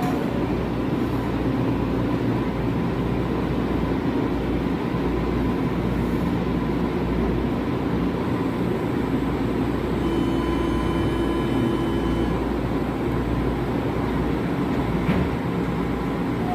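São Paulo Metro Line 3-Red train running through the station with a steady rumble of wheels and motors, and a brief higher whine at about ten seconds in.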